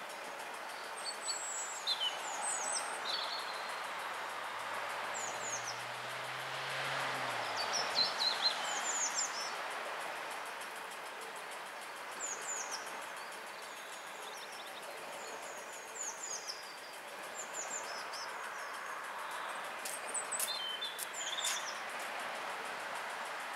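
Small songbirds chirping again and again in short falling notes over a steady background hiss, with a few sharp clicks near the end.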